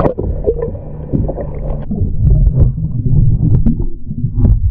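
Lake water sloshing and splashing around a kayak, with irregular knocks and handling noise close to the microphone. It is loudest and most churning in the second half.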